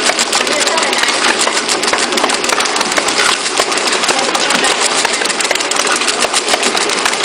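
Automatic flat labeling machine for lighters running: a steady, fast clatter of rapid mechanical ticks over a constant motor and conveyor noise.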